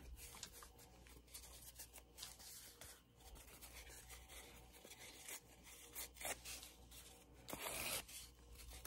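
Faint rustling and rubbing of fibrous paper worked between the fingers and torn at the edge to roughen it, with a few louder rips near the end.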